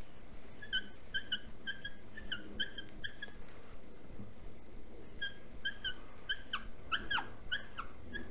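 Whiteboard marker squeaking against the board as a wavy line is drawn: quick runs of short, high squeaks, several a second, in two spells with a brief pause between them.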